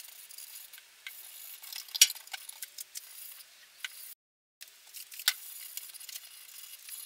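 Stain-soaked tissue paper wiping across bare guitar-body wood: a faint, scratchy rustle with a few sharp ticks, the loudest about two seconds and five seconds in. The sound cuts out completely for a moment just past four seconds.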